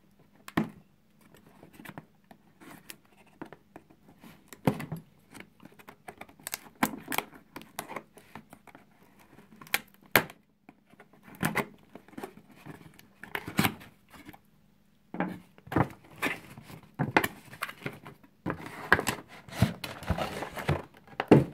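Potato peeler scraping along a cardboard box and cutting through its paper seal sticker, then the box being opened and its inner packaging pulled out: irregular scrapes, taps and cardboard rustles, thickening into steady rustling near the end.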